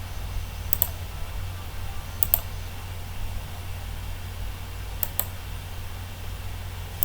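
Computer mouse clicking: four quick double clicks a second or two apart, over a steady low hum.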